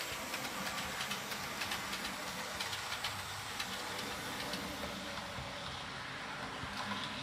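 HO-scale model freight train running on its track, pulled by an Alco S2 diesel: a steady rolling rattle with many rapid little clicks from the wheels on the rails.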